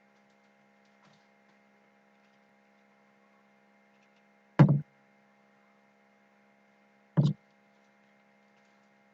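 Two short, sharp knocks about two and a half seconds apart, about halfway through and near the end, over a faint steady electrical hum.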